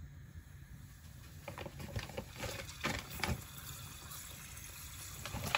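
Chocolate ravioli frying in a small saucepan of hot oil: a soft sizzle with scattered pops and crackles that pick up about a second and a half in.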